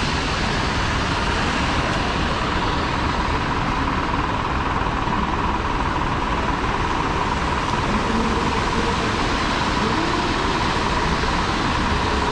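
Steady street noise in heavy rain: a continuous hiss of rain and passing traffic over a low rumble, with a faint steady hum.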